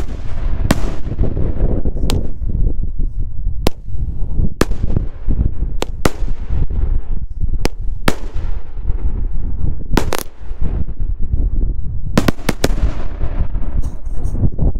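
Consumer firework cake firing color salute shells, each bursting in a sharp bang about once a second over a low rumble. Near the end comes a quick flurry of three or four bangs.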